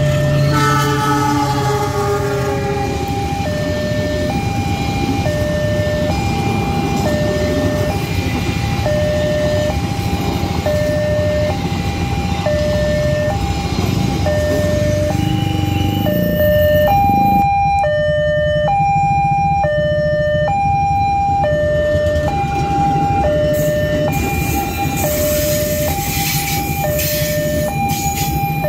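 Railway level-crossing warning alarm sounding two electronic tones, high and low, alternating steadily. Underneath is the rumble of passing trains, and a diesel locomotive's multi-tone horn sounds in the first couple of seconds.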